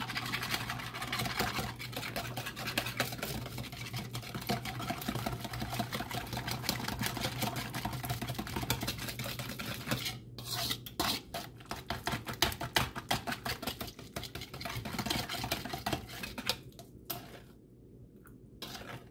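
A utensil beating egg-and-cream French toast batter in a bowl: a fast, dense run of clicking and scraping strokes that breaks off about halfway, then resumes as more spaced, sharper strokes that thin out near the end.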